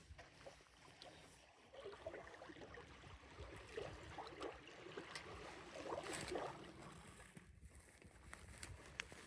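Faint water sounds: quiet lapping and small, irregular splashes.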